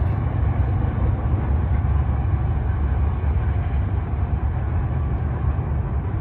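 Norfolk Southern freight train passing: a steady low rumble of its cars rolling on the rails.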